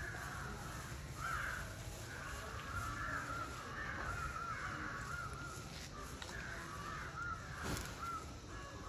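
Birds calling over and over, short calls one after another, over the low rustle of a burning matchstick chain. Near the end a short burst of hiss as a Diwali cracker catches and puffs out a cloud of smoke.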